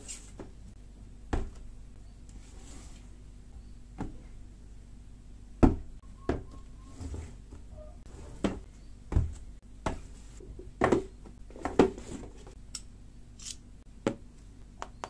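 Irregular knocks and taps of a boxed phone and a plastic utility knife being handled and set down on a hard tabletop, about a dozen in all, the loudest a little over a third of the way in.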